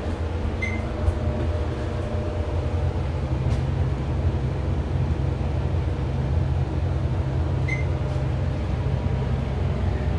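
Dover traction elevator car in motion, heard from inside the car: a steady low hum and rumble of the ride. Two short high beeps sound, about a second in and again about seven seconds later.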